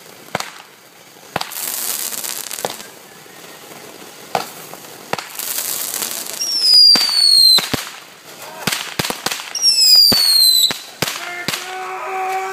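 Consumer fireworks going off: a string of sharp cracks and pops with hissing sprays. Twice a whistle falls in pitch for about a second, followed by more cracks.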